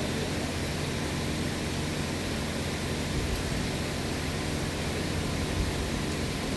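Steady workshop background noise: an even, unbroken hiss with a low hum underneath and no distinct knocks or clatter.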